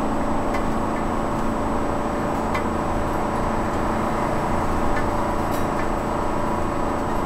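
Steady engine and tyre noise inside a moving RV's cab while cruising at about 36 mph on a wet highway, with a constant hum and a few light scattered ticks.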